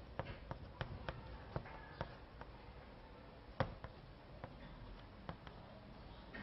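Writing on a board: a series of light, irregular taps and clicks, with one sharper knock about three and a half seconds in.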